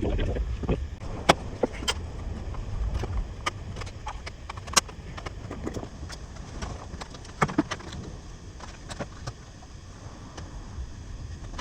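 Scattered light clicks and knocks, the loudest about a second and almost five seconds in, as parts are handled on a milling machine, over a steady low rumble.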